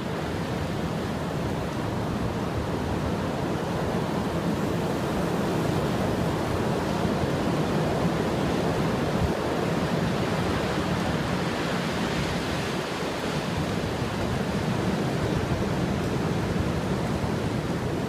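Strong blizzard wind rushing steadily, with low buffeting on the microphone; it grows a little louder over the first few seconds.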